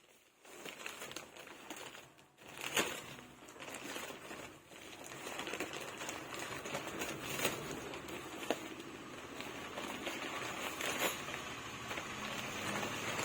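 Nylon tent fabric and its bag rustling and crinkling as the tent is handled and unpacked, with scattered small clicks and knocks.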